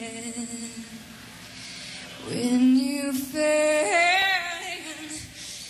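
Female voice singing a slow Scottish ballad in long held notes. It scoops up into a note a little after two seconds and wavers in vibrato on the next phrase.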